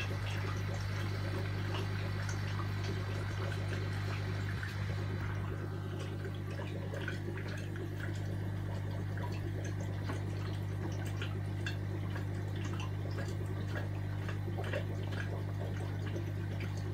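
Small aquarium's equipment running: a steady low electrical hum under trickling, dripping water with many small ticks and pops.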